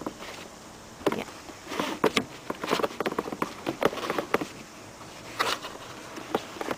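A car seat and its seatbelt being handled: irregular clicks, knocks and rustling of plastic and belt webbing as the belt is fitted into the seat's lock-offs.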